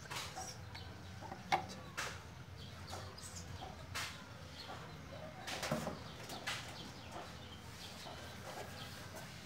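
Chickens clucking now and then, with a few short sharp clicks and knocks between them.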